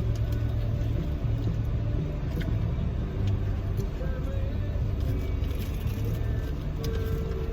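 Car engine idling, a steady low rumble, with faint music in the background.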